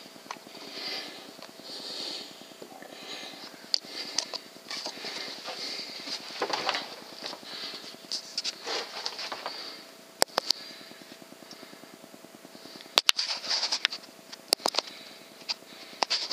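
Handling noise on a riflescope's built-in microphone as the rifle is moved: irregular rustling with scattered sharp clicks, a cluster of them about ten seconds in and more toward the end.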